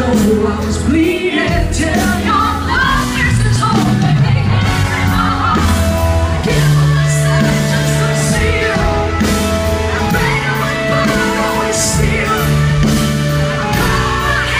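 Live band playing through the stage PA, with a singer's voice over amplified guitar and a bass line whose notes change every second or two.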